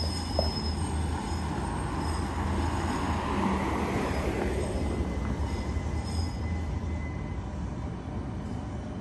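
Train running past on the rails: a steady rumble that swells about halfway through and then eases, with thin high squealing tones from the wheels on the rails.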